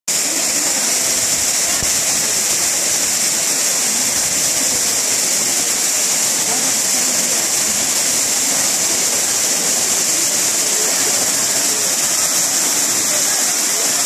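Waterfall pouring into a rock pool: a steady rush of falling water with a strong high hiss that does not let up.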